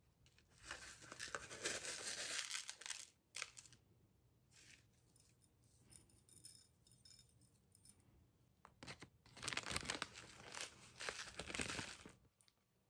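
Crinkling and rustling of food packaging in two long stretches, one about a second in and one near the end, with a few sharp clicks between. The first stretch is the cardboard carton of rock salt being handled and salt being scooped out. The second is the paper bag of demerara cane sugar being opened and handled.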